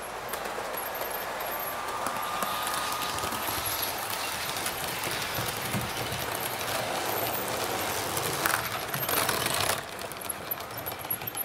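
Model train coaches running on metal track, the wheels clattering and clicking over the rail joints and points, loudest about nine seconds in.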